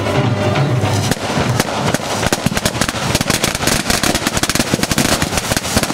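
Ground fountain firework spraying sparks with a hiss and dense, rapid crackling that starts about a second in. Music with a bass beat is heard before it and stops as the crackling begins.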